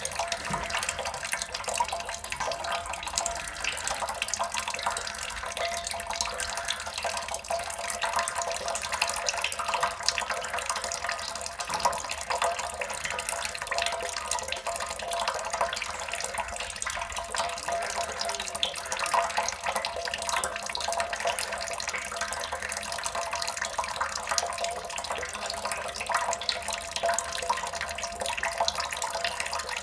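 Water drops falling in a steady, dense stream, many small splashes in quick succession with no let-up.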